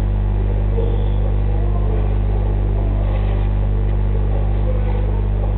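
A steady low hum with evenly spaced overtones, loud and unchanging throughout.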